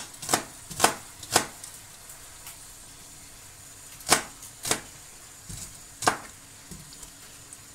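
Kitchen knife slicing a red onion on a plastic cutting board, each cut ending in a sharp knock of the blade on the board. About six cuts: three in the first second and a half, then three more after a pause of a couple of seconds.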